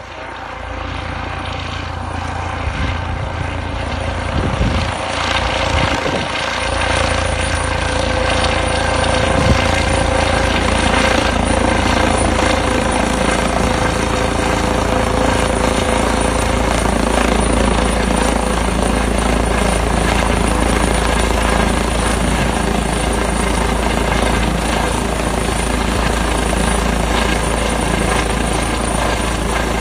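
Helicopter growing louder over the first several seconds as it comes close, then running steadily nearby, a high whine holding above the rotor noise.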